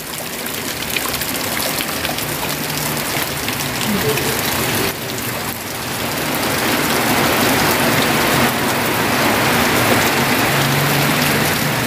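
Heavy rain pouring down onto a wet concrete yard and into water-filled buckets, getting louder about halfway through.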